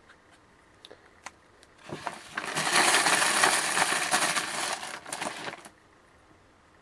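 Dense rustling rattle of the letter pieces being mixed and drawn by hand, starting about two seconds in and lasting about three and a half seconds, with a few light clicks before it.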